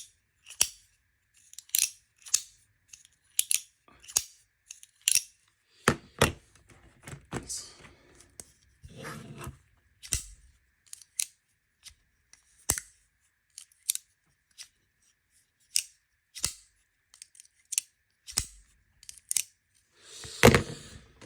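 Demko AD20.5 folding knife being flicked open and snapped shut over and over to test its action: a long, irregular run of sharp metallic clicks, about one or two a second. Near the end there is a longer rustle of handling.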